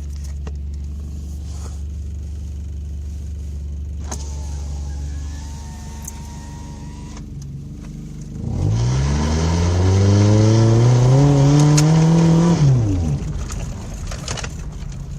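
Toyota pickup engine idling steadily, then about eight seconds in revved hard under load, its pitch climbing for about four seconds before it drops back to idle.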